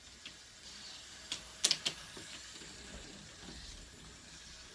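Plastic toy train set being handled: a few sharp clicks and clatters, the loudest a little under two seconds in, over a faint steady whirr.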